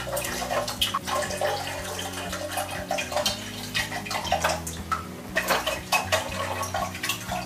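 Hydrogen peroxide poured from a bottle into tall glasses already holding water, splashing and gurgling as it goes from one glass to the next.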